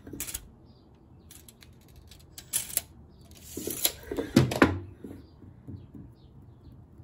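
Handling noise of a short ash board on a metal table saw top: a few scrapes and light knocks as it is turned over and laid down. The loudest is a pair of knocks about four and a half seconds in.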